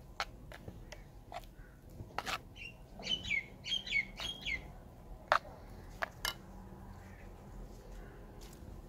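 A metal spoon clinking against a clay bowl as chicken pieces are turned through thick batter, in scattered sharp taps, the loudest about five and six seconds in. A bird chirps a quick run of short falling calls a few seconds in.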